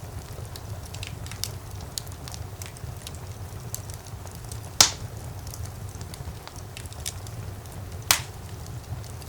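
Wood fire burning in a fireplace: a steady low rumble of flames under scattered light crackles, with two loud pops about five and eight seconds in.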